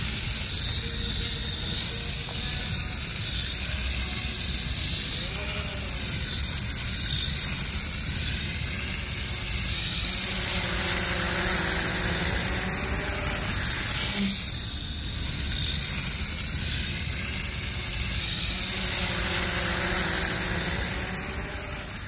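JJRC H98 quadcopter's motors and propellers buzzing in flight, heard through its own onboard camera, the pitch wavering up and down as the throttle changes, with a steady high tone alongside. The sound drops briefly about two-thirds of the way through.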